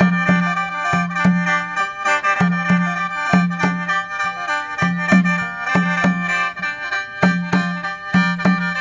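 Khaen, the Lao-Isan bamboo free-reed mouth organ, playing continuously with held drone notes, over a regular beat of low notes about twice a second.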